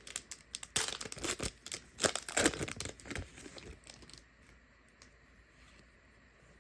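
Packaging of a trading card mega box being ripped open: a run of quick tearing and crinkling sounds over the first four seconds, then quiet.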